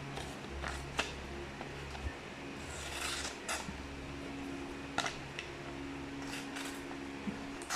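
Small keychain-tool knife blade on a Leatherman Squirt PS4 slicing through a sheet of paper, with a short rasping cut about three seconds in and a few sharp clicks from handling the tool. A steady low hum runs underneath.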